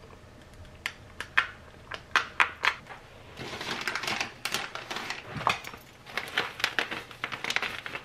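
A few light clicks and taps, then from about three seconds in, a denser rustling of clothing and fabric with many small clicks and knocks as someone dresses and handles a puffy quilted bag.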